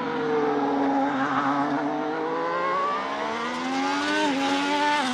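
Formula One race car engine revving at high pitch. The note sinks slightly, then climbs steadily as the car accelerates, dips briefly near the end, rises again and cuts off abruptly.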